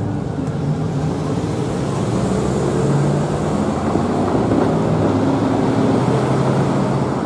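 Road traffic moving off: cars and a pickup truck pulling away and driving across the railroad tracks, engines running over a steady hum of tyre noise.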